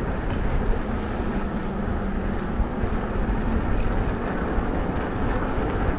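Wind buffeting the microphone while riding a bike: a steady rushing rumble, with a faint low hum for a couple of seconds about a second in.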